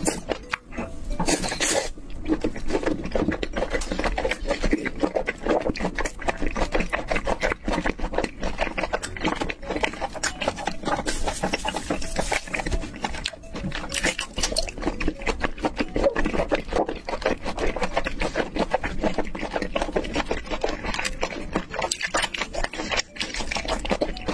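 Close-miked chewing and mouth sounds of a person eating red-sauced seafood and mushrooms, a dense run of small wet clicks and smacks.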